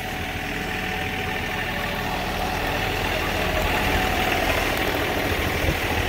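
John Deere 3046R compact tractor's three-cylinder diesel engine running steadily close by, a little louder in the second half.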